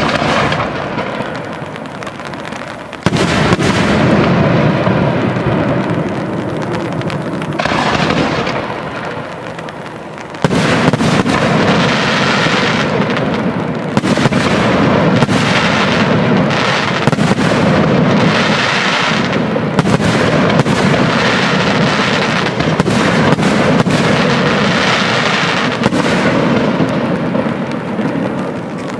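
Aerial firework shells bursting in a display, a run of loud bangs with rumbling echoes. Sudden bursts come about 3 and 10 seconds in, then a dense volley of bangs follows without a break.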